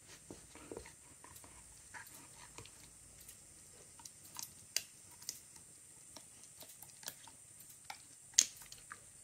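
A Belgian Shepherd (Groenendael) chewing and biting a rubber Hol-ee lattice ball and its torn-off pieces: irregular clicks and crunches from his teeth on the rubber, the sharpest about eight seconds in.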